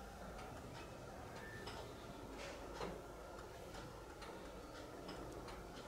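Faint, irregular light clicks and taps from fingers handling a small circuit board, over a low steady hum.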